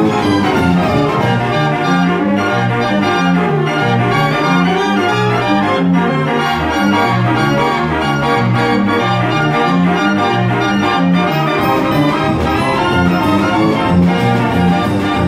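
Fairground organ playing a tune on its pipes, with a steady bass beat under the melody.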